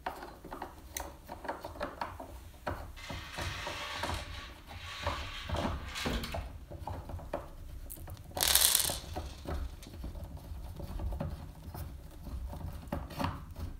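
A tapered wooden furniture leg being screwed by hand into an angled mounting plate: a run of small irregular clicks and scrapes as its threaded bolt turns, with one louder, brief rustling scrape about eight and a half seconds in.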